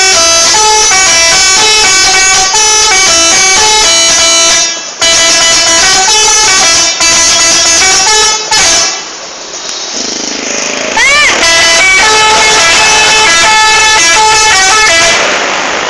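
Indonesian bus "telolet" horns: multi-tone air horns playing a rapid stepping melody, very loud. They break off about nine seconds in, then start up again.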